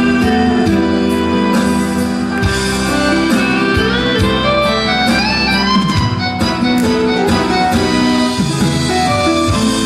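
Instrumental backing music for a trot song: a held melody line with a climbing run about halfway through, over a steady beat.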